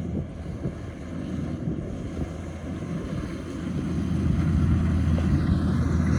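Rice combine harvester's engine running with a steady low drone, growing louder about four seconds in.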